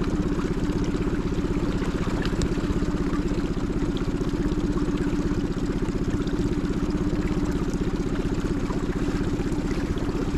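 Small Tohatsu outboard motor running steadily at low trolling speed, with an even rapid firing rhythm that doesn't change.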